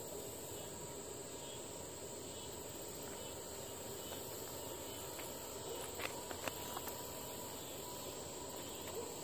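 Steady chorus of insects in the trees, an even high-pitched buzz, with a few faint clicks about six seconds in.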